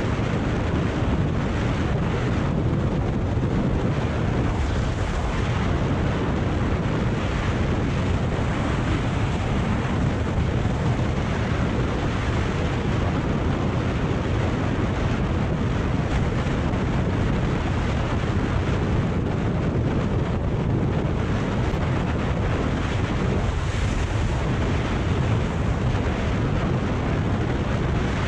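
Steady wind rush over the camera microphone of a Kawasaki Ninja 400 motorcycle riding at road speed, an unbroken noise heaviest in the low end.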